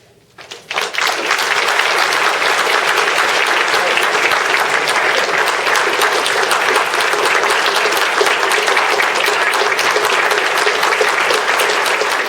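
A congregation applauding: dense, steady clapping that begins about half a second in.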